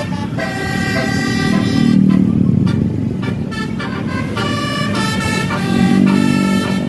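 Bus telolet horn, a Basuri-type multi-tone air horn, playing a tune of stepped notes over the low rumble of bus engines. The notes break off for about a second around two seconds in, then start again.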